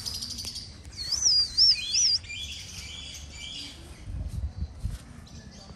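Birds chirping, with one high warbling whistle that wavers up and down for about a second, followed by shorter high calls.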